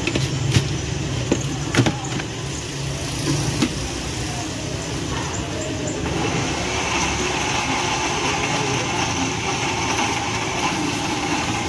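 An engine running steadily, a low hum with a few sharp knocks in the first two seconds. From about six seconds in it becomes a little louder and brighter.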